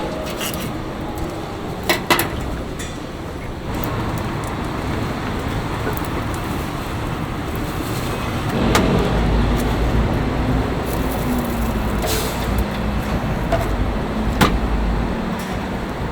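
Street traffic, with a heavy vehicle such as a bus passing in the middle: a low engine rumble rises a little past halfway and fades near the end, with a few sharp clatters early on.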